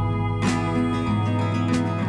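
Instrumental background music with plucked acoustic guitar.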